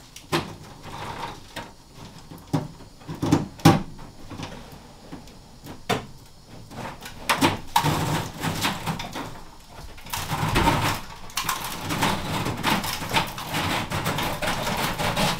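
Cable being pulled back through the bare sheet-metal body of a van. Scattered knocks and clicks come first; from about seven seconds in there is a louder, continuous rustling and scraping as the cable drags along, with more knocks against the metal.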